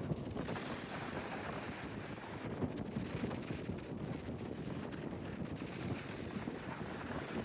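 Wind buffeting the microphone, a steady, gusty rush.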